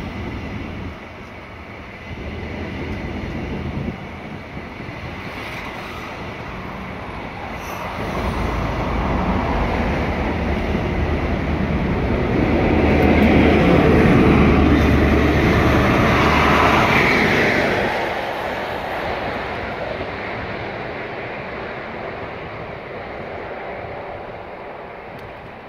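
Express passenger train coaches rolling past along the platform, wheels on rail. The running noise grows about a third of the way in, peaks near the middle with a low steady hum under it, then fades as the train clears the station.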